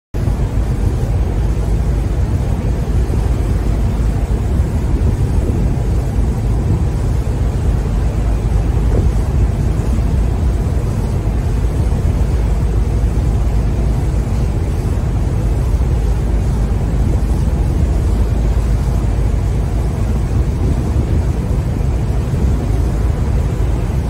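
Steady, low rushing of churned sea water along a moving boat, with wind buffeting the microphone.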